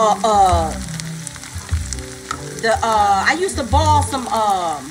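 Chopped onions, bell peppers and greens sizzling as they sauté in a frying pan. A woman's voice with long sliding tones sounds over it briefly at the start and again through the second half.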